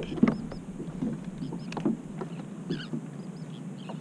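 Small waves lapping and slapping irregularly against a plastic fishing kayak's hull, with light knocks.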